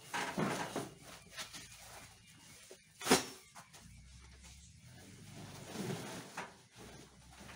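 Sacks of freshly picked green corn ears being handled on a trailer bed: rustling and scraping, with one sharp knock about three seconds in.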